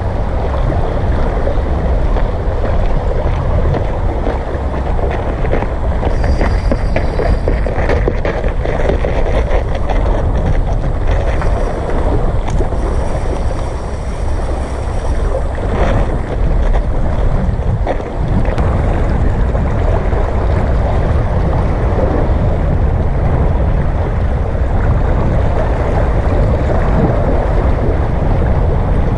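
Wind buffeting the microphone, steady and loud, over seawater washing against the shore rocks.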